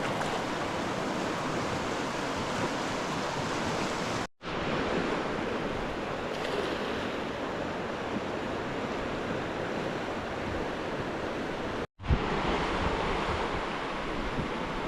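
Steady rushing noise of fast-flowing river water, cutting out abruptly twice.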